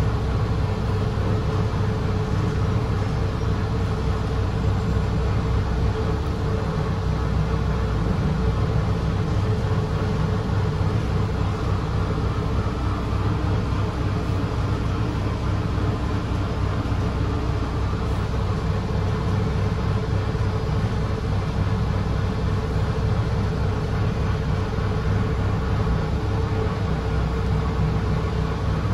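Steady cabin noise inside a 2017 Gillig Low Floor BRT 40-ft transit bus: engine and running noise with a steady hum, unchanging throughout.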